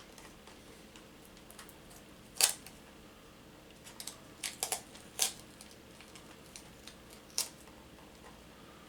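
Scattered sharp clicks and taps as a smoke detector and its packaging are handled, the loudest about two and a half seconds in and a quick cluster around the middle.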